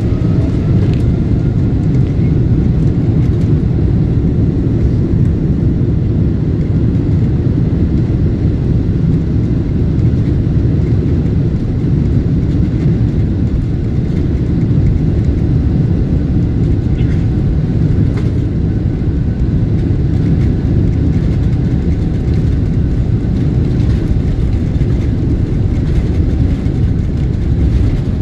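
Steady, loud cabin rumble of a Boeing 777-300ER rolling on the ground, heard from a seat behind the wing: the GE90-115B engines running together with the wheels rolling, at an even level throughout.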